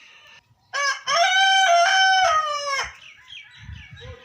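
Rooster crowing once, a short opening note then a long held cock-a-doodle-doo that falls away at its end, lasting about two seconds.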